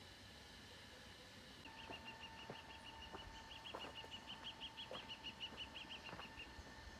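A bird's rapid trill of short, high, repeated chirps, about six a second, lasting some five seconds, heard faintly over a steady high hum.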